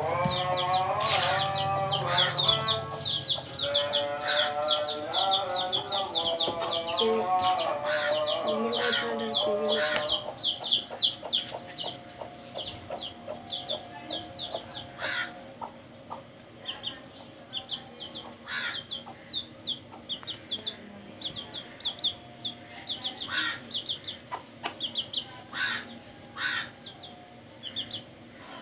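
Domestic chicks peeping continuously, high-pitched chirps several a second, with a few short clucks from the mother hen.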